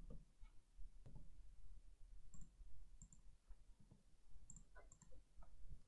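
Faint, irregular clicking of keys being typed on a computer keyboard.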